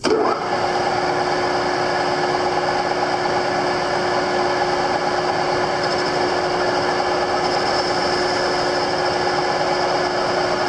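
Metal lathe switched on and running steadily, its spindle turning a three-jaw chuck and a steel shaft supported on a revolving tailstock center: an even machine hum with a constant tone.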